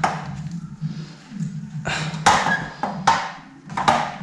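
A few sharp knocks and taps as a venetian blind's headrail and a spirit level are pressed against the wall and shifted into line.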